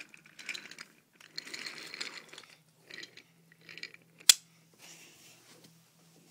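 Thomas Wooden Railway toy engine and wooden trucks rattling along wooden track as they are pushed by hand in shunting, in several short bursts, with one sharp click about four seconds in.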